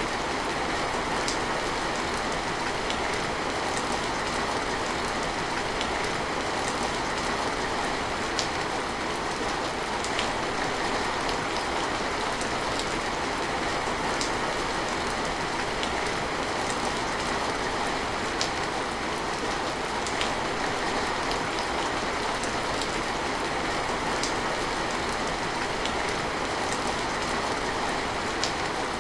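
Steady rain falling, with scattered sharp ticks of single drops striking close by every second or two.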